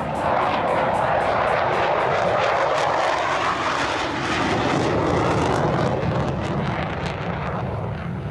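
Loud aircraft engine noise from an airplane performing at an air show, a steady roar that swells in the first half-second and eases slightly near the end.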